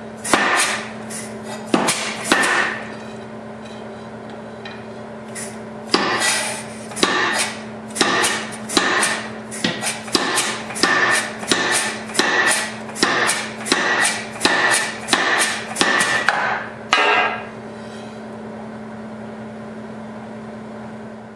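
KZ100 compressed-air power hammer, run as a treadle hammer, striking a hot steel bar on the anvil. A few blows come first, then a pause of a few seconds, then an even run of blows about one and a half a second landing on a handled top tool held on the bar, stopping about four seconds before the end. A steady hum runs underneath.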